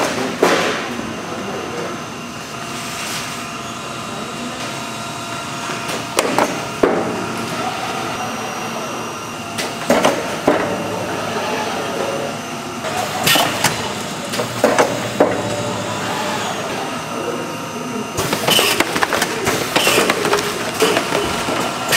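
Food-factory kitchen ambience: a steady hum of machinery with scattered clatters and knocks of containers and utensils, thickening near the end, and indistinct voices in the background.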